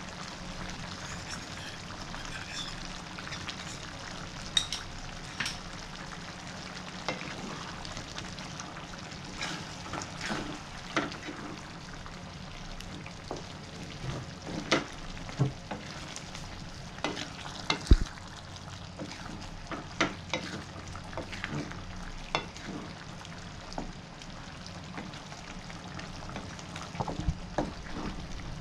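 Wooden spatula stirring a thick beef kurma in a non-stick frying pan, with irregular knocks and scrapes against the pan, the sharpest about two-thirds of the way in, over the steady sizzle of the simmering curry.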